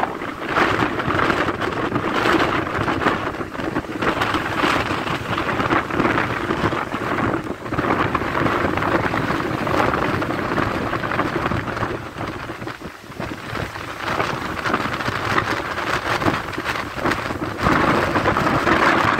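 Strong storm wind gusting against the microphone over the noise of heavy surf breaking below. It swells and eases, dropping off briefly past the middle, then comes back strong near the end.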